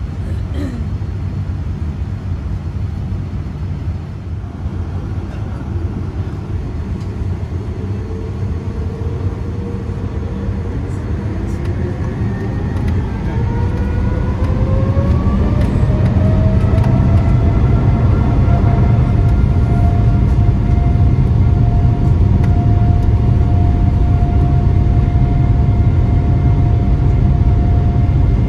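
Boeing 787-9's jet engines heard from inside the cabin, spooling up to takeoff thrust. A whine rises in pitch over about ten seconds and settles into a steady high tone over a deep rumble. The rumble grows louder midway as the takeoff roll gets under way.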